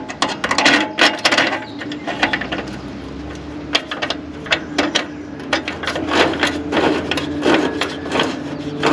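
Irregular metallic clicks, clinks and knocks of hand tools and bolts being handled while fitting tractor exhaust hardware, over a steady low hum.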